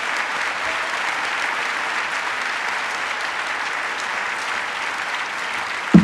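A large audience applauding, a steady dense clapping that holds at one level.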